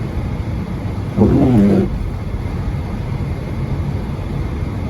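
A car's steady low rumble heard from inside the cabin while it drives on a snowy road. About a second in comes a short vocal sound from the driver.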